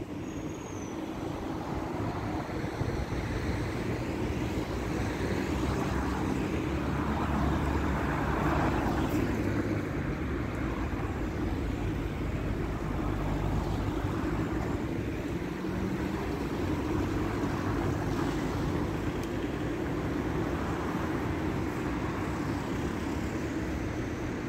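Street traffic: vehicles running past in a continuous rumble that swells over the first several seconds and then holds steady.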